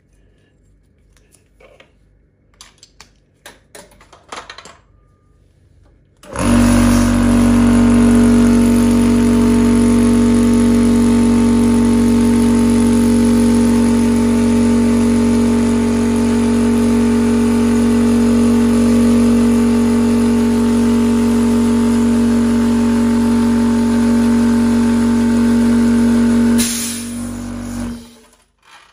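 Electric high-pressure PCP air compressor starting about six seconds in and running with a steady loud hum for about twenty seconds, filling the air cylinder to about 200 bar to test a rebuilt regulator valve. It then shuts down near the end. Before it starts there are light clicks of the fittings being handled.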